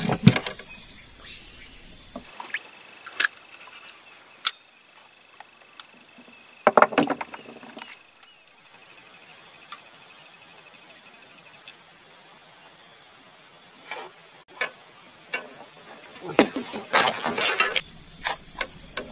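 Insects chirping steadily in high, thin tones, with scattered sharp clicks. There are two louder bursts of noise, a short one about seven seconds in and a longer one near the end.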